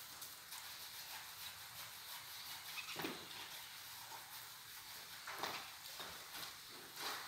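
Caged quail (bater) giving short, faint calls, a few in all, about two seconds apart, over a steady background hiss.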